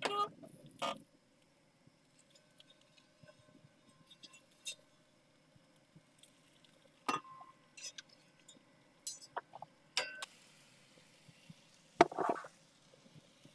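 Scattered clinks and knocks of a metal spatula on a Big Green Egg's grill grate as a cooked whole chicken is lifted off and set into a plastic tub, the loudest knock near the end.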